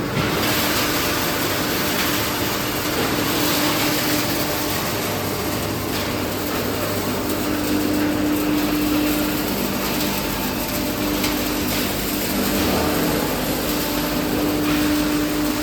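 Large wood sawdust hammer mill crusher running: a steady rushing machine noise with a constant hum, with a few faint ticks.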